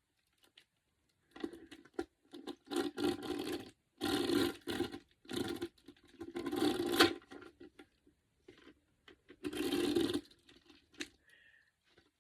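Plastic crinkling and rustling in a run of irregular bursts, as a PVC purse or its plastic wrapping is handled.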